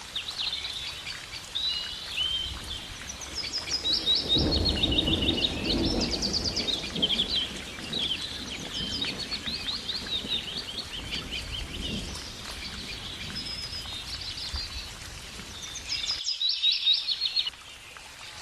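Several small birds chirping and singing rapid trills over a steady background hiss. A low rushing swell comes in about four seconds in and lasts a few seconds. Near the end the background abruptly changes while the chirping goes on.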